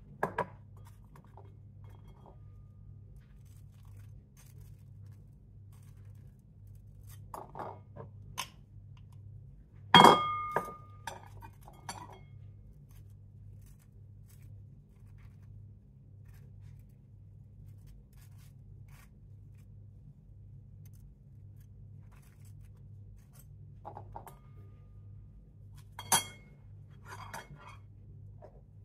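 Butter knife working peanut butter out of a jar and spreading it on toast: occasional soft scrapes and clicks, with one sharp ringing clink about ten seconds in and another a little before the end. A low steady hum runs underneath.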